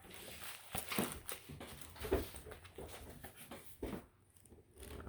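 Handling noise from a handbook and journal set being looked over: a string of irregular soft taps, rustles and paper sounds, thinning out near the end.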